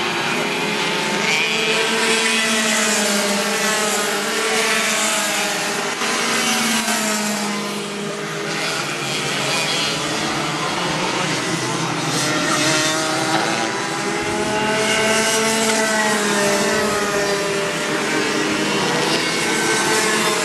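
Several racing go-kart engines running on the circuit, their overlapping tones rising and falling in pitch as the karts speed up and slow through the corners.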